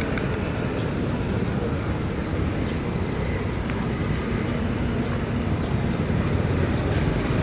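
Steady city street traffic noise: engines and tyres of passing vehicles as a continuous low rumble.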